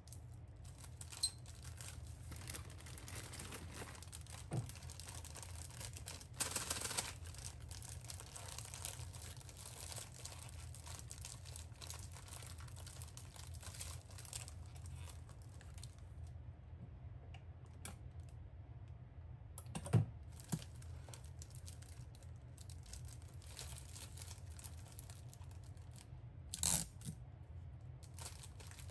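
Thin clear plastic bags crinkling and rustling as bags of crisp chiffon-cake rusks are handled, with a few sharp clicks and knocks, the loudest about twenty seconds in and another near the end.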